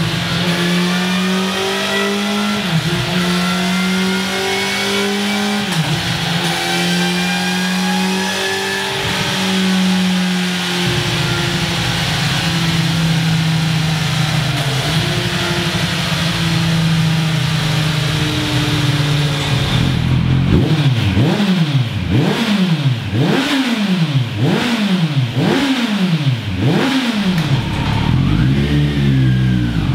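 Kawasaki Z900's inline-four engine running on a dyno through a Scorpion Serket Taper slip-on exhaust. It is held at steady high revs with brief dips every few seconds, then the revs sink slowly. About two-thirds in it switches to the Scorpion RP1-GP slip-on, and the throttle is blipped again and again, the revs rising and falling about once a second.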